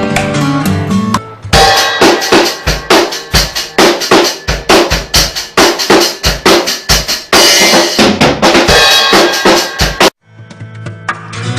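Music: a plucked-string melody ends about a second in, then a drum kit plays a busy beat with kick and snare for about eight seconds. It cuts off suddenly, and plucked-string music starts again near the end.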